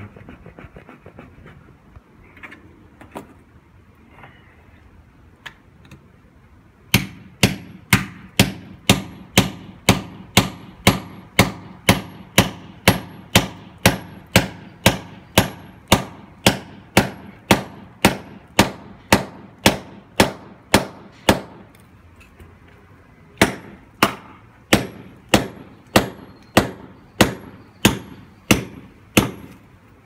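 Hammer striking a steel chisel against a stone wall, chiseling a stone block loose. The sharp blows come evenly at about two a second, starting about seven seconds in, with a short pause after about twenty seconds before they resume.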